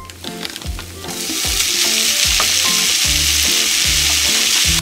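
Diced vegetables and bulgogi beef sizzling in a hot frying pan. The sizzle starts loud about a second in and then holds steady.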